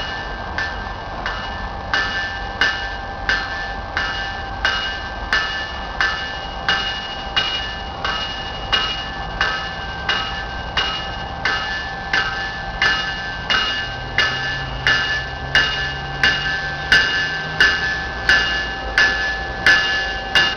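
Approaching GO train's warning bell ringing at a steady pace of about one and a half strikes a second, growing louder as the train draws near. The train's low rumble comes in about two-thirds of the way through.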